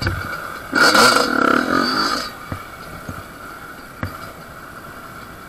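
Yamaha dirt bike engine revving in one loud burst about a second in, then running quieter, with a few sharp knocks from the bike going over the trail.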